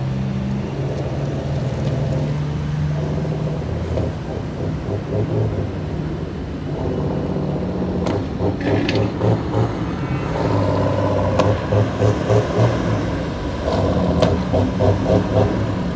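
Diesel engine of a heavily loaded semi truck running under load, its pitch shifting several times, with a pulsing stretch in the second half.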